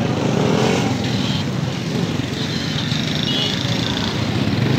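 A motorcycle engine running close by, steady, amid the general traffic noise of a busy street.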